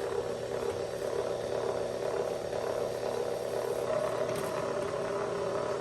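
Steady hum made of several held tones, unchanging throughout, with no distinct cuts or clicks.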